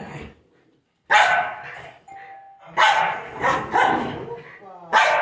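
Small dog barking in play: a run of short, sharp barks, about four or five, starting about a second in, with a brief steady whine between the first two.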